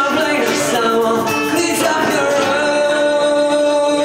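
A band playing a song with a singing voice, closing on a long held sung note that starts a little past halfway.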